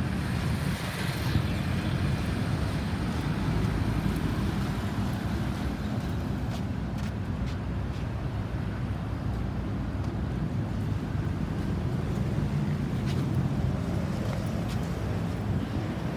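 Steady low rumble of road traffic, vehicle engines and tyres, with a brief hiss about a second in.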